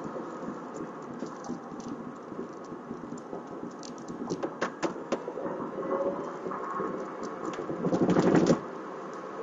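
Tesla Roadster's electric motor whining faintly, its pitch gliding with speed, over steady road and tyre noise heard from inside the cabin. There are scattered clicks, and a louder rush of noise comes near the end.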